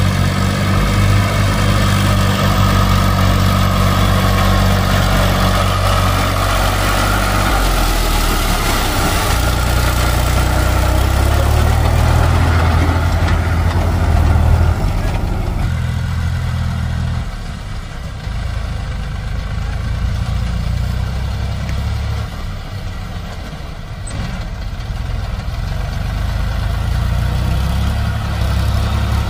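Diesel tractor engines running steadily: an HMT 3522 tractor working with a fully loaded mud trolley, with a JCB 3DX backhoe loader running alongside at first. The engine sound shifts about seven seconds in, and about fifteen seconds in it becomes lower and quieter.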